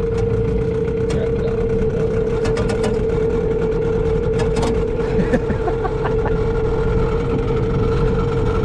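Small boat's outboard motor idling with a steady hum, with scattered light clicks and knocks over it.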